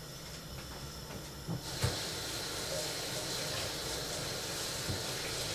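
Kitchen tap turned on about a second and a half in, with a knock, then water running steadily into the sink.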